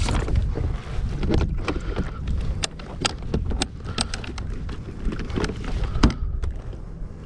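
Wind buffeting the microphone, with scattered clicks and knocks from the spinning rod, reel and kayak deck as a hooked horseshoe crab is fought beside the kayak; one sharper knock about six seconds in.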